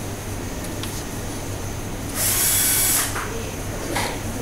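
Motor-driven hot-air blower (heat gun) running with a steady hum and hiss, shrinking heat-shrink tubing over a soldered joint. About two seconds in, a loud rush of air lasts about a second, as the nozzle blows more directly.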